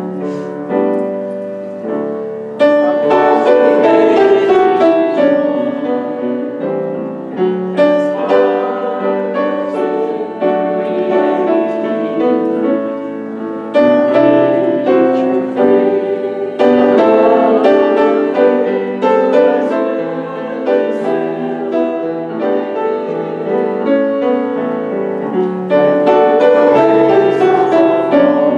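Piano playing a hymn, struck chords and melody in phrases that swell up again several times.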